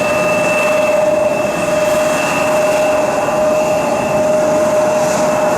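The General Electric CF34 turbofan engines of a Fuji Dream Airlines Embraer jet running: a steady rushing noise with two held whining tones, one middling and one high, neither rising nor falling.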